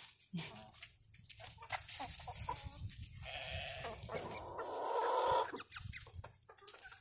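A mixed backyard flock of chickens clucking, with a long, harsh squawk of about two seconds starting about three seconds in.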